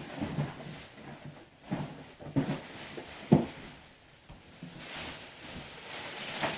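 Gift items and their packaging being handled and set down: scattered knocks with rustling in between.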